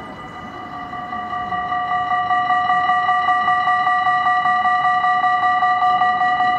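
Level-crossing warning bells ringing in rapid, even strokes, growing louder over the first two seconds and then holding steady, while the crossing is still closed just after a train has passed.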